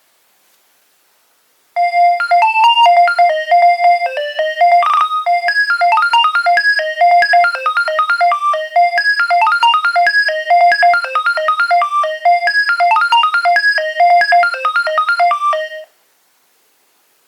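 Nokia 2300 mobile phone playing a ringtone: a quick, bright electronic melody of short notes that starts about two seconds in and stops abruptly about a second and a half before the end.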